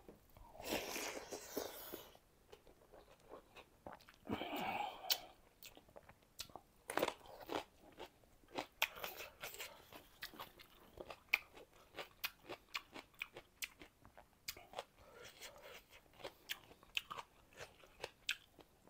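Close-miked chewing of a mouthful of rice and fish curry: many sharp, crunchy clicks from the mouth, with two longer, noisier stretches of chewing near the start and about four seconds in.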